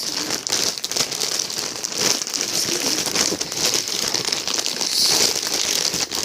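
Packaging crinkling continuously as it is handled and unwrapped, a dense run of small crackles.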